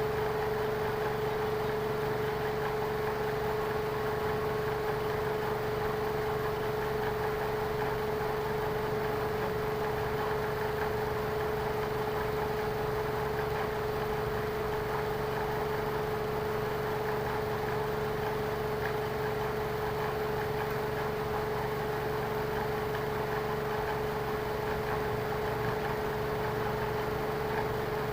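A motor running steadily with a constant mid-pitched whine over a low hum.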